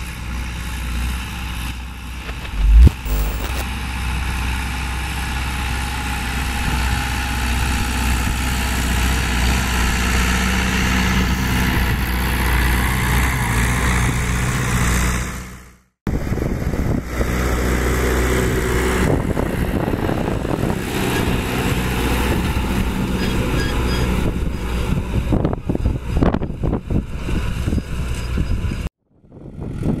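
John Deere 2850 tractor's four-cylinder diesel engine running steadily under load while pulling an offset disc harrow. A sharp thump about three seconds in, and the sound cuts out briefly twice.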